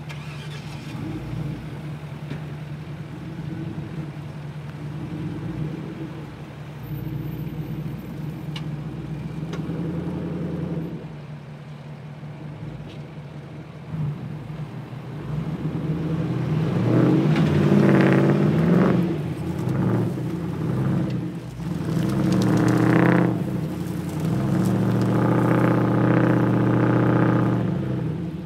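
Truck engines idling, then from about halfway an engine revs up hard under load in three surges as a stuck Ford F-250 is pulled backward out of sand.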